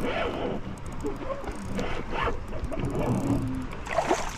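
Fishing reel being wound in, its gears and ratchet clicking, as a hooked fish is brought up to the kayak.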